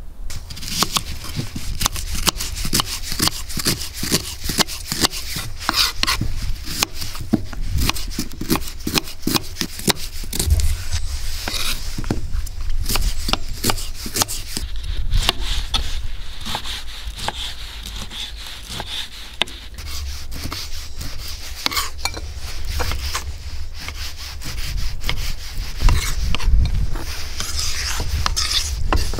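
Kitchen knife slicing an onion on a wooden cutting board: a quick run of knife taps on the board, thinning out to slower cuts later, over a low rumble of wind on the microphone.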